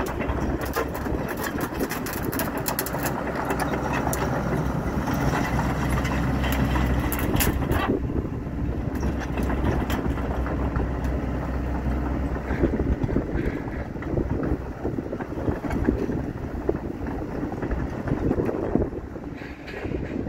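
Sany SY75C excavator's diesel engine running as the machine swings and travels on its steel three-bar track pads, with a steady low drone and a dense rattle and clank of the tracks. The clatter fades about eight seconds in, and the engine drone drops off a few seconds later as the machine moves away.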